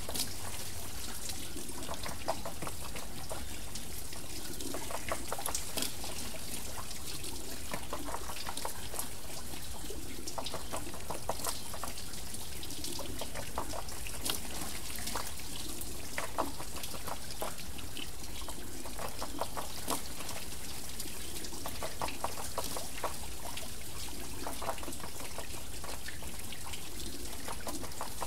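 Water wheel turning, with water pouring and trickling off it in a steady hiss and splashes recurring every second or two.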